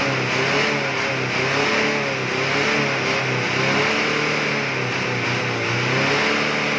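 Car engine being revved over and over, its pitch rising and falling about once a second as the throttle is pumped.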